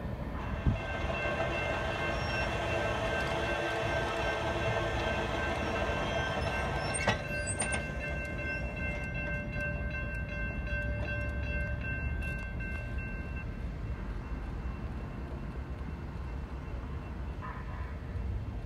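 Light rail train running with a steady electric whine over a low rumble; the whine fades out about two-thirds of the way through. A sharp click about seven seconds in.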